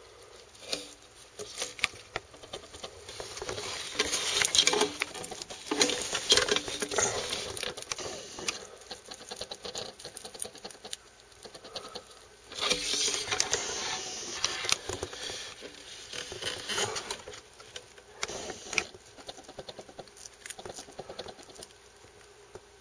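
Scratching, rustling and crackling as a Vietnamese giant centipede scrabbles over loose soil substrate and grapples with a dubia roach it is eating. The sound comes in uneven flurries of small clicks, loudest between about four and seven seconds in and again around thirteen seconds in.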